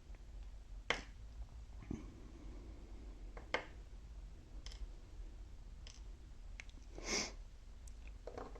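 Faint, scattered clicks and taps of small metal lock parts being handled as a dimple lock is taken apart, with a short hissing rustle near the end.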